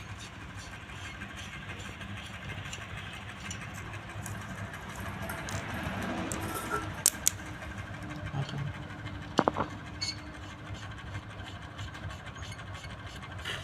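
A steady low machine hum, with a few sharp clicks and taps about halfway through.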